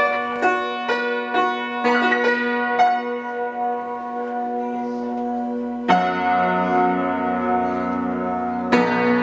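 Upright piano played: a run of quick notes over a held low note, then two full chords struck and left ringing, about six seconds in and near the end.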